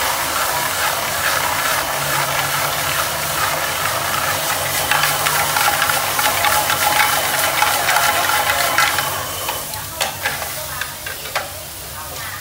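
Clams sizzling as they are stir-fried with wooden chopsticks in a pan over a high gas flame. The sizzle swells about halfway through, then dies down, with a few sharp clicks near the end.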